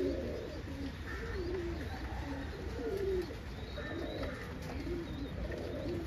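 Domestic pigeons cooing, a run of low rolling coos repeating every second or so.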